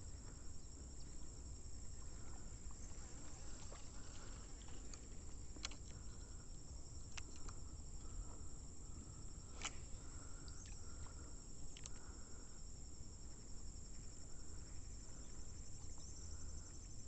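A steady, high-pitched trilling of insects, with a few sharp clicks between about five and twelve seconds in and a low rumble underneath.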